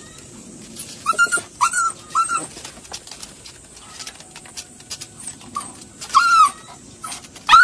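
A young puppy whimpering in short, high, rising-and-falling cries as it tries to climb out of a pit: three quick cries about a second in, then another near the end.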